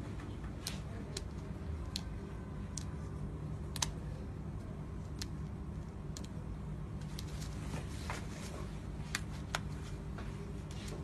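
Gloved fingers picking and pulling at a T-shirt's stitched print panel: scattered sharp clicks and faint rustles at irregular intervals over a steady low hum.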